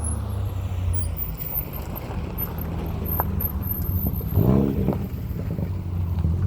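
Car engine running steadily, with one quick rev that rises and falls about four and a half seconds in.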